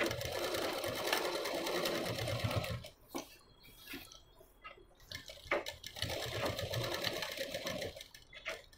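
Domestic sewing machine stitching fabric in two steady runs of about three seconds each. Between the runs there is a short pause with a few light clicks.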